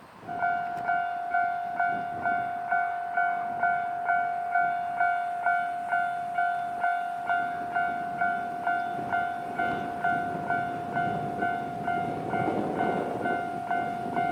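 Japanese level-crossing warning bell starting up and ringing steadily at about two dings a second. From about nine seconds in, a rising rumble of the approaching Kiha 261 series diesel train builds beneath it.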